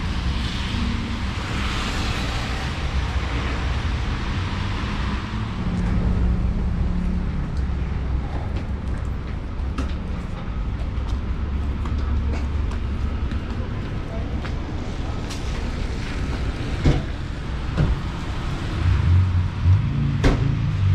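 Road traffic on a rain-wet street: cars passing with the hiss of tyres on wet asphalt, strongest over the first few seconds, over a steady low rumble. A few sharp clicks come near the end.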